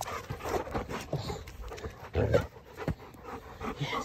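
Two Bernese mountain dogs panting and scuffling as they play, in irregular short bursts, with one brief loud low burst about two seconds in.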